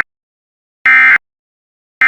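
Emergency Alert System end-of-message data tones: three short, loud bursts of two-tone digital data about a second apart, the 'NNNN' code that closes an EAS alert.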